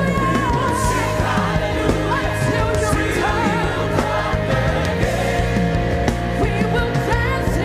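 Live worship music: a singing voice wavering over steady held chords from a band.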